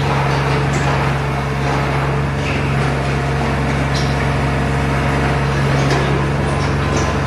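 Factory machinery running steadily with a strong, constant low hum and a few faint scattered clicks.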